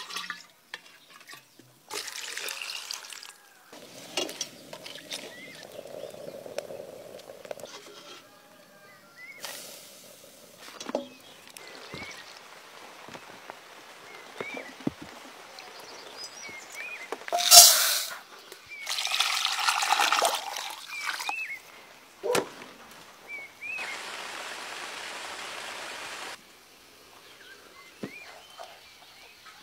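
Liquid being ladled, poured and trickling in a string of separate short sounds with pauses, as rice wine and an herbal brew are scooped from a clay jar and strained through cloth. There is one short, louder burst of noise a little past halfway. Small chirps come and go in the background.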